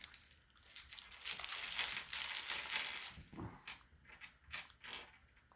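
Plastic Lego minifigure blind bag crinkling and rustling as it is torn open and handled, with a few short clicks toward the end.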